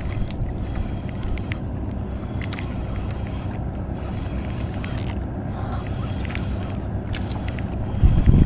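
Steady low rumble of a small fishing boat on the water, with scattered light clicks and a louder low thump near the end.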